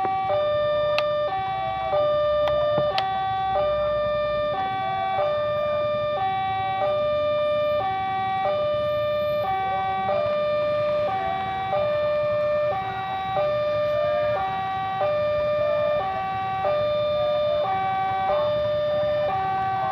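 Railway level-crossing warning alarm sounding while the barrier is down: an electronic two-tone signal, a short higher note followed by a longer lower note, repeating steadily about every one and a half seconds.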